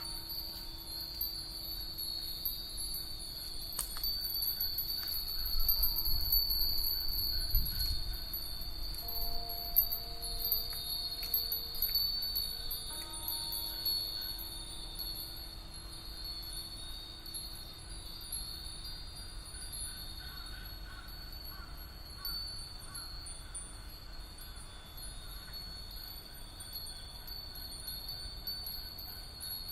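Hundreds of Japanese fūrin wind bells tinkling together in a dense, continuous high shimmer, heard binaurally. A low rumble rises under them around six to eight seconds in.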